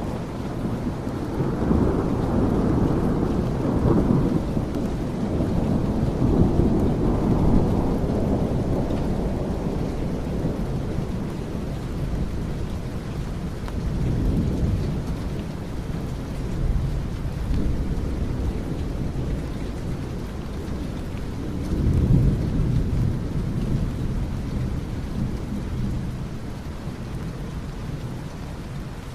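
Steady rain with rolling thunder: long low rumbles swell through the first several seconds and again about three-quarters of the way through.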